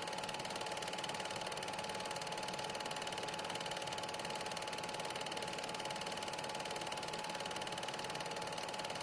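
Super 8 film projector running: a steady, very rapid mechanical clatter over a constant hum.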